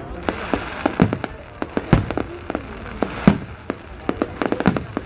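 Fireworks going off in quick, irregular succession: many sharp bangs and pops, the loudest about one, two and three seconds in, with a rapid cluster of pops near the end.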